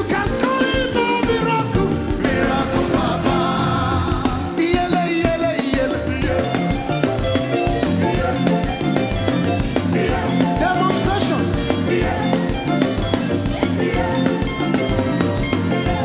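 Live gospel worship music: a band with bass and drums playing an upbeat rhythm, with a singer's voice over it.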